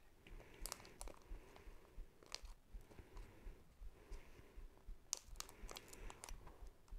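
Faint crinkling and tearing of packaging being opened by hand, with scattered short crackles and clicks, busiest about five to six seconds in.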